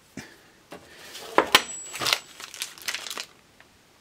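Crinkling of small plastic parts bags being handled, with light clicks and taps of small metal sewing machine parts against a steel drawer. The loudest clicks come about a second and a half in.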